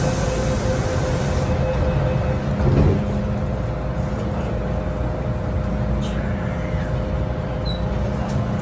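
MTR M-Train electric multiple unit running, heard from inside the car: a steady low rumble with a constant hum. A high hiss sounds for the first second and a half, and there is a brief louder surge about three seconds in.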